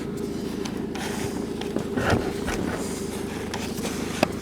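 Steady hum of a car engine running, with a short knock about two seconds in and a click near the end.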